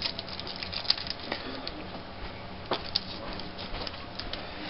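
Trading cards being handled and flipped through: light rustling with scattered small clicks and snaps as the cards slide against each other, over a faint steady hum.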